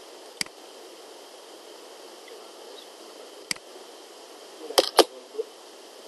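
Sharp clicks of a computer mouse: one single click, another about three seconds later, then two loud clicks close together near the end, over a steady low hiss.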